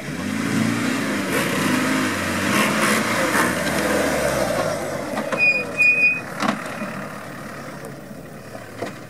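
Land Rover Defender engine revving up and down as it is driven over a dirt off-road course, fading toward the end. About five seconds in, a short high-pitched tone sounds twice; this is the loudest thing heard.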